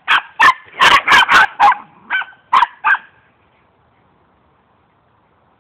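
Danish-Swedish farmdogs barking: about eight quick, sharp barks in the first three seconds, then they stop.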